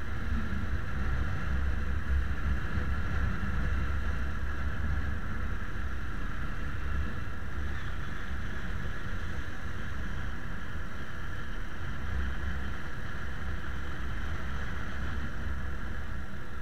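Riding a motorcycle: a steady low rumble of wind buffeting the bike-mounted action camera's microphone, with road and engine noise mixed in. The rumble is a little stronger for the first few seconds.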